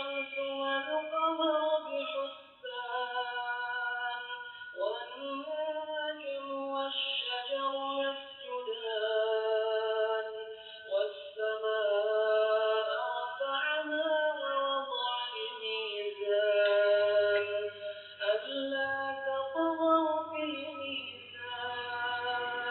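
A song with a voice singing long held and sliding notes, played from a laptop and picked up by a Hikvision DS-2CE70DF0T-LPFS CCTV camera's built-in microphone, sounding thin with the top end cut off. A faint low steady hum comes in about three-quarters of the way through.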